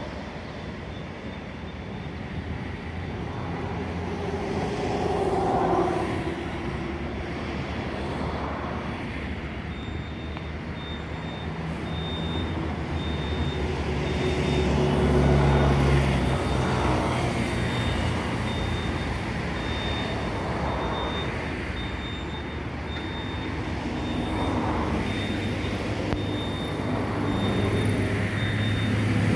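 Road traffic passing: a run of vehicles going by one after another, the loudest about halfway through with a deep rumble.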